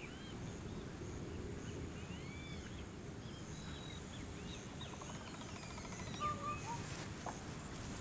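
Steady high-pitched insect drone, such as crickets, with many short bird chirps and whistles scattered over it, above a low background rumble.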